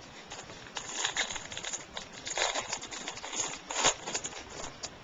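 Trading cards being handled and sorted by hand: cards flicked and slid against each other in short, irregular rustles and clicks.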